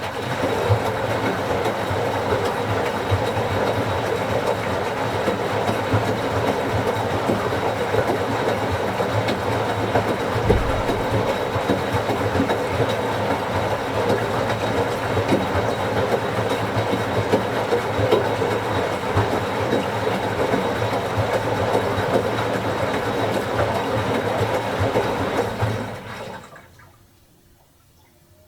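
Washing machine running its wash: the drum turns, churning water and laundry over a steady motor hum, then stops about 26 seconds in.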